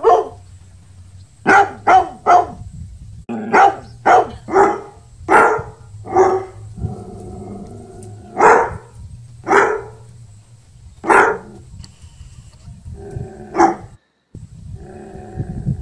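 A dog barking: about a dozen short, sharp barks at irregular intervals, with a few longer, lower drawn-out calls between them.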